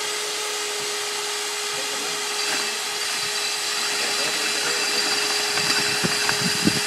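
Electric diamond core drill on a stand, water-fed, running steadily at full speed with a constant motor whine as its bit cuts a core from a concrete block. A few light knocks come near the end.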